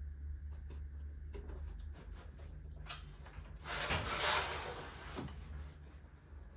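Handling noise from an overhead rack of balloon dipping formers being moved and raised: light clicks and knocks, with a louder sliding rush about four seconds in, over a steady low hum.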